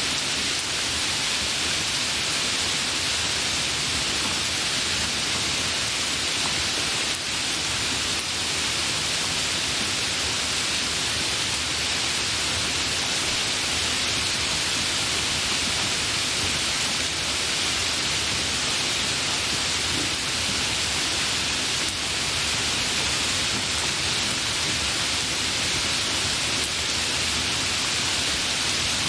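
Heavy rain falling steadily: an even, unbroken hiss with no thunder or single drops standing out.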